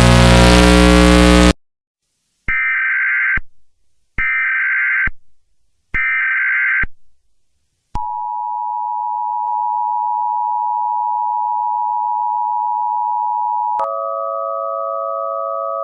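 A loud, harsh noise blast for about the first second and a half, then three short screeching Emergency Alert System SAME header data bursts with silences between them. These are followed by the steady two-tone EAS attention signal (853 and 960 Hz), which switches near the end to a different chord of steady tones.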